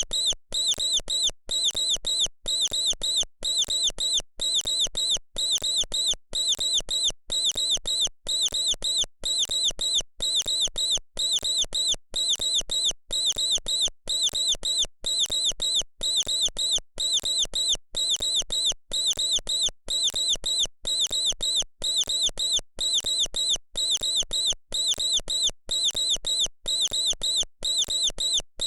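A mouse squeaking: quick runs of short, high-pitched squeaks, one run about every second in an even repeating pattern.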